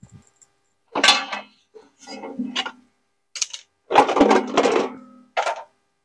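Stainless steel drum of a front-loading washing machine clanking and ringing as it is handled and lifted, in several separate metallic knocks, the loudest about four seconds in.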